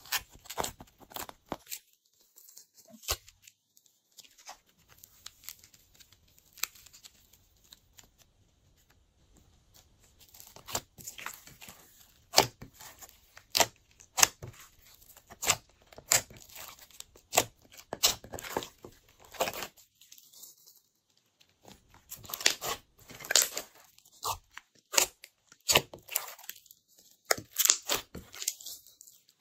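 Glossy slime being kneaded, squeezed and pulled apart by hand in a glass dish, giving sticky pops and crackles. They are sparse at first, then come several a second from about a third of the way in.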